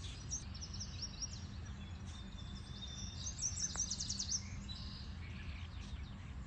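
Songbirds chirping and trilling, with a run of quick repeated notes in the middle that is the loudest part, over a steady low outdoor rumble. A single faint click comes near the middle.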